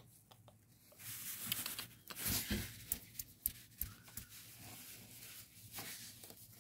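Quiet rustling and scattered soft clicks as a phone rubs against a black cat's fur, with two louder rustles about a second in and about two and a half seconds in.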